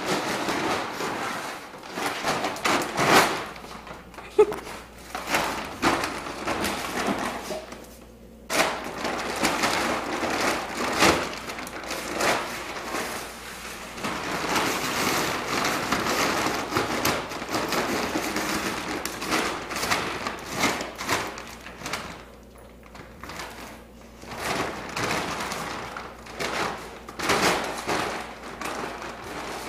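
Empty plastic dog food bag crinkling and rustling on and off as a dog roots inside it and pushes it across a concrete floor, with an occasional thump.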